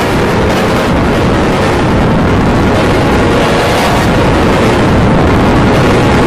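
Loud, dense wall of distorted audio from many stacked copies of TV logo soundtracks playing over each other, blurring into a steady noisy roar with faint held tones buried inside. It grows slightly louder toward the end.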